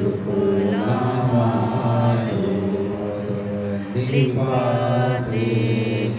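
Tibetan Buddhist mantra chanting: low voices intoning in long held phrases, with a brief break about four seconds in.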